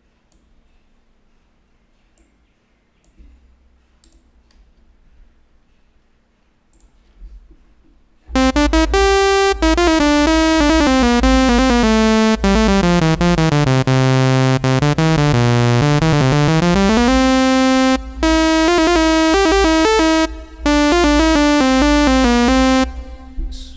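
Serum software synthesizer, micro-tuned through Fluid Pitch, played from a keyboard: a run of bright synth notes stepping down in pitch in small steps and back up again, with two short breaks. It starts about a third of the way in, after a few faint clicks, and stops just before the end.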